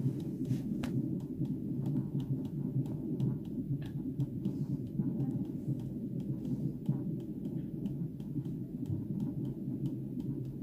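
Unborn baby's heartbeat played through the Doppler loudspeaker of a Sonicaid FM800 Encore CTG fetal monitor: a steady, continuous beat picked up by the ultrasound transducer on the mother's belly.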